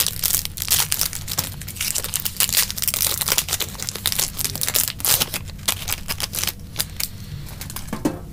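Foil trading-card booster pack being opened by hand: the wrapper crinkles in a dense, irregular run of crackles that thins out near the end.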